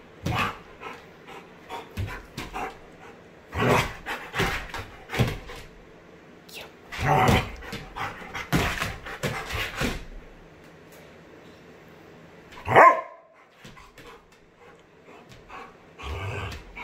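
German Shepherd barking in irregular short bursts, hyped up in rough play. One loud, sharp bark comes about 13 seconds in.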